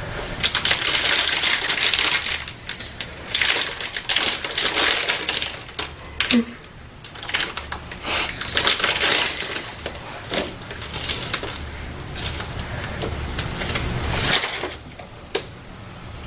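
Crinkly packaging being squeezed and handled, an irregular crackling and crunching that swells in several louder spells.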